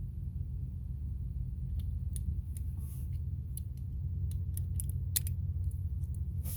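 Scattered small metallic clicks and ticks of hand tools and screws working on a car battery terminal while the wires are screwed back on, over a steady low hum.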